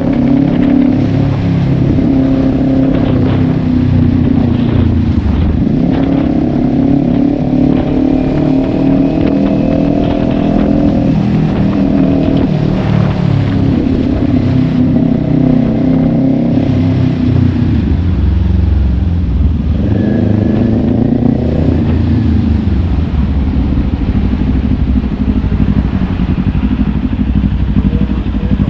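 Kawasaki Ninja 400's parallel-twin engine pulling away and shifting through the gears: its pitch climbs and falls back several times, then runs lower and steadier near the end.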